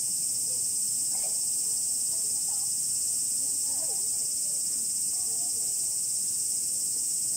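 A chorus of cicadas droning steadily, a constant high-pitched buzz of summer insects that does not change.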